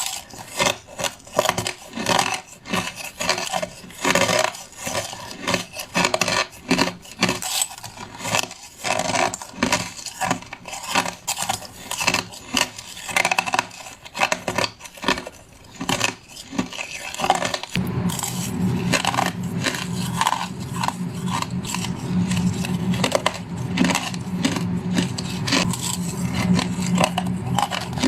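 A person biting and crunching crushed ice close to the microphone, with one crisp crunch after another in an irregular rhythm. About two-thirds of the way in, a steady low hum comes in under the crunching.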